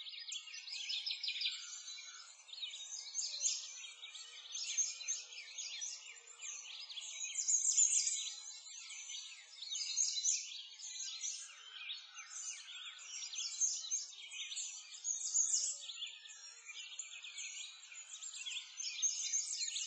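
Many small songbirds chirping and singing at once in a busy, unbroken chorus of high, quick notes.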